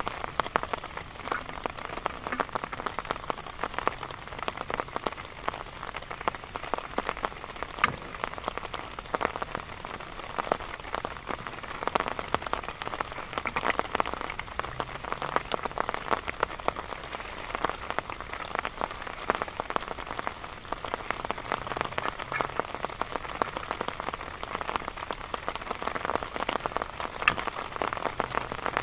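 Heavy rain falling steadily, a dense stream of drops striking a surface. Two single drops stand out sharper and louder, about a third of the way in and near the end.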